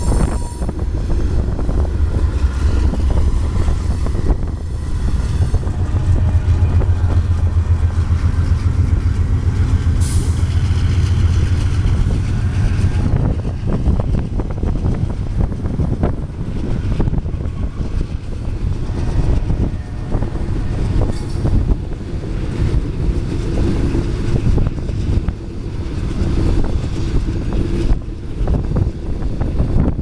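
CSX freight trains rolling past: the steady rumble and rattle of freight cars on the rails, with the low hum of diesel locomotives loudest in the first half. A wheel squeal fades out in the first second.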